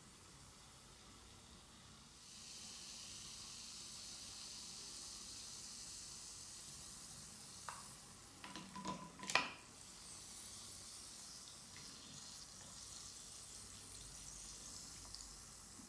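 Carbonated bath bomb fizzing in water, a steady hiss of bubbles that starts about two seconds in. A few clicks and one sharp knock come about halfway through.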